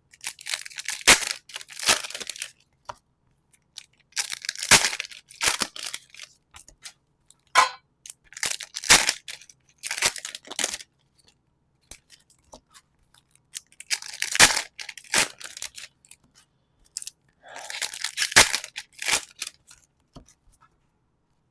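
Foil Pokémon card booster packs being torn open and crinkled. There are about five separate rustling, tearing bursts, each a second or two long, with short pauses between them.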